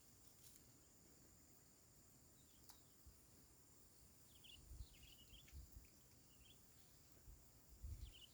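Near silence: faint outdoor ambience with a steady high insect whine, a few faint bird chirps about midway through, and a few soft low bumps.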